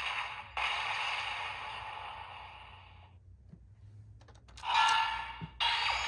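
Magnum Shooter 40X toy gun playing its electronic Tactical Blast finisher sound effect through its small speaker: a blast sound that fades away over a couple of seconds. A short tone-like effect follows, and another sound effect starts near the end.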